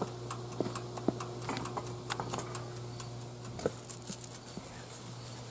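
Irregular ticking and clicking from an overvolted toaster oven with red-hot heating elements, over a steady electrical hum. A louder click comes about three and a half seconds in, after which part of the hum stops and the elements go dark.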